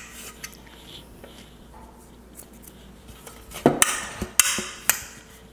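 A metal madeleine tin knocked several times against a wooden counter, with a brief rattle between the knocks, to shake off excess flour from its buttered shells. Only light handling clicks come before the knocks start, a little over halfway in.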